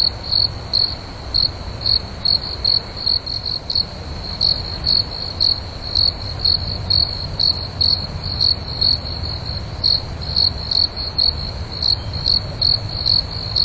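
A cricket chirping: a steady high trill with louder chirps about two to three times a second, pausing briefly about four seconds in. A faint low rumble runs underneath.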